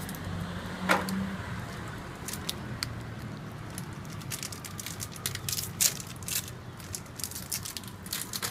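A bar of soap being unboxed and unwrapped: irregular crackles and clicks of its cardboard box and wrapper, over a low steady hum.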